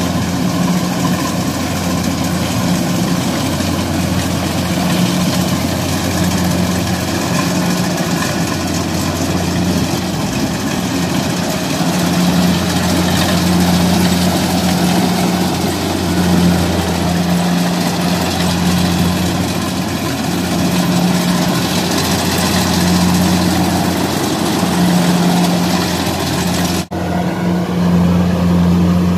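Rice combine harvester's diesel engine running steadily, a loud low drone with machinery noise over it, broken by a brief dropout near the end.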